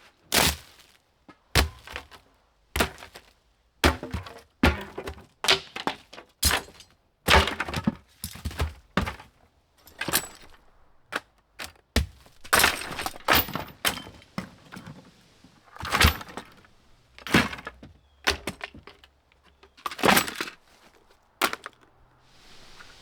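Irregular series of sharp knocks, clunks and cracks, a couple of dozen in all, with a few short scraping or rattling stretches between them, as objects are handled and set down.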